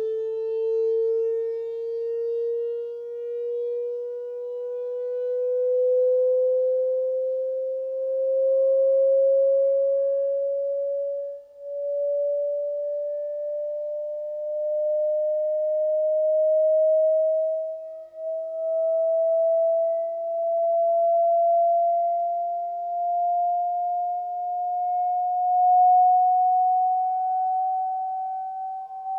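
Medion 65-inch TV's built-in speakers playing a slow sine-sweep test tone that rises steadily in pitch, with faint higher tones above it. The sweep is used to find the frequencies where the set resonates and squeaks. Its loudness swells and dips several times along the way.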